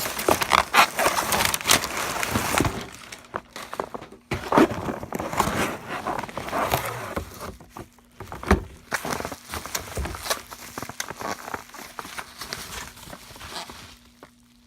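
A model locomotive's box and packaging being handled and opened by hand: irregular rustling and crinkling with scattered knocks and taps, quieter spells at about four and eight seconds in and dying down near the end.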